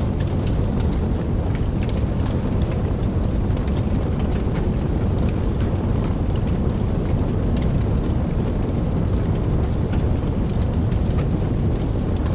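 Campfire crackling: many small, irregular pops and snaps, several a second, over a steady low rumble.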